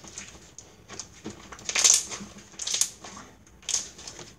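Homemade slime being kneaded and squeezed by hand, giving a handful of short, irregular squishes, the loudest about two seconds in.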